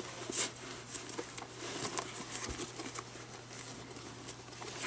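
Leather glove lace being threaded and pulled through a baseball glove's lace holes: light, scattered rustling and ticking of lace against leather, with a slightly stronger pull about half a second in and another near the end.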